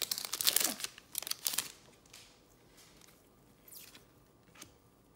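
Trading cards and a foil card-pack wrapper being handled: crinkling and rustling, busy for the first two seconds, then only a couple of faint brushes.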